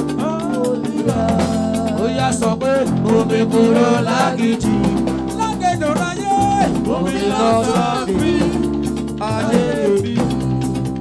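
Yoruba gospel music: a band with drums, bass and guitar playing a steady, danceable groove, with singing.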